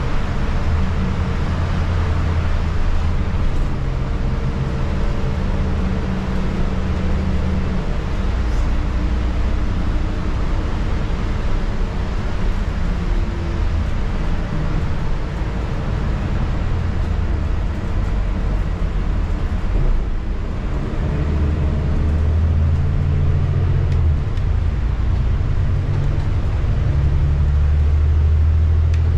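City transit bus heard from inside the cabin while driving: the engine and drivetrain drone low and steady, the pitch shifting a few times as the bus changes speed. Tyre and road noise on the rain-wet street hiss underneath.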